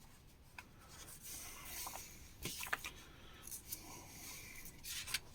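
Faint rustling of magazine paper being handled, with a few soft scrapes and clicks as pages are turned.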